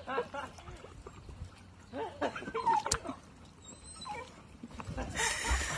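A dog whining and whimpering in short rising-and-falling cries, one longer sliding whine about halfway through, then a burst of splashing water near the end as it goes off the tube into the lake.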